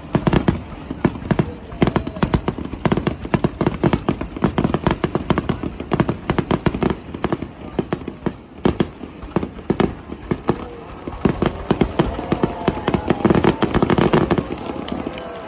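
Aerial fireworks display: a dense, continuous barrage of shell bursts, many sharp bangs in quick succession with rumbling between them.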